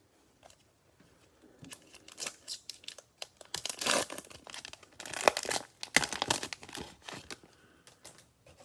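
Plastic wrapper of a pack of trading cards being torn open and crinkled by hand, in a run of crackling rustles that is loudest in the middle.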